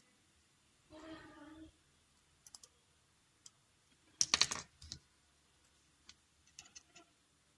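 Scattered sharp clicks and taps of small hard parts and tools being handled, with a louder quick cluster of clicks about four seconds in.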